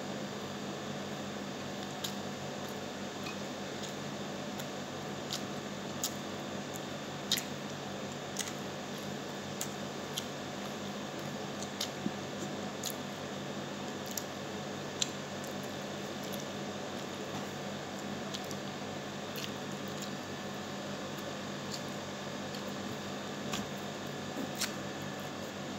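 A person eating rice and pork adobo by hand: scattered short, sharp clicks of chewing and of fingers picking at a plate, over a steady low hum.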